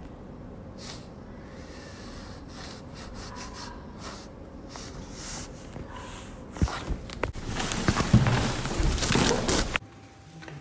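Rubbing and rustling right against a phone's microphone as a cat pushes its face and chin into it, with a few light knocks. The rubbing grows much louder in the second half, then cuts off suddenly near the end.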